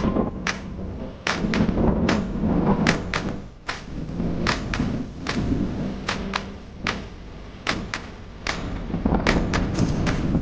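Irregular sharp knocks and thuds, about one or two a second, over a steady low background rumble with a faint hum.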